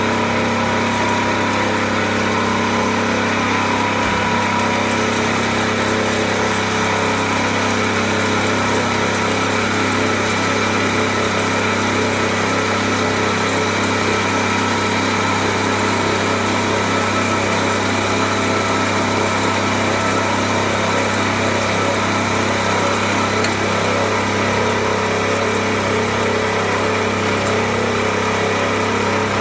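Coffee grinding machine running steadily: a constant, unbroken mechanical hum with no change in speed.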